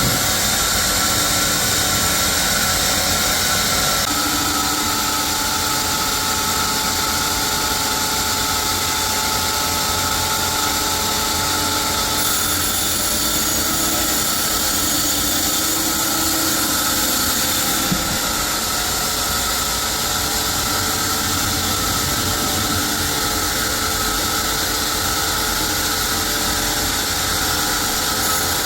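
Sawmill machinery running steadily: a continuous loud mechanical drone with a high whine that shifts slightly a few times.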